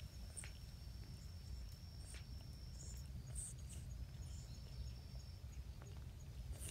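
Faint outdoor ambience: a low background rumble under a thin, steady high-pitched insect trill that breaks off about three seconds in and resumes a moment later, with a few faint ticks and chirps.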